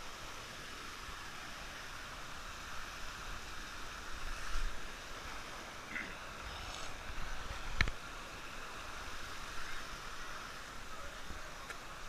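Stream water rushing over rocks in small cascades, a steady hiss. Low bumps about four to five seconds in and again later, with a sharp knock near eight seconds in that is the loudest moment.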